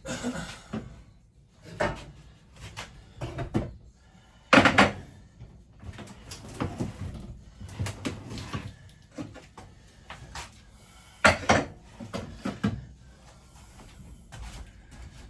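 Irregular knocks, bangs and rattles of RV kitchen cabinetry being pried and shaken loose, with two heavier bangs, about a third of the way in and again about three quarters through.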